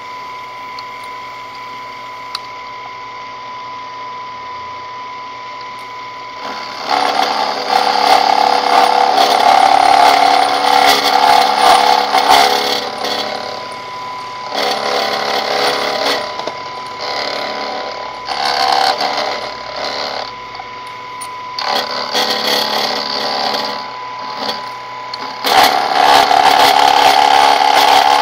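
Benchtop milling machine with an end mill partially cutting away a metal part held in a vise. The spindle runs with a steady hum and a high whine at first, then about six seconds in the cutter bites in with loud, rough cutting noise, in several long passes with short pauses between.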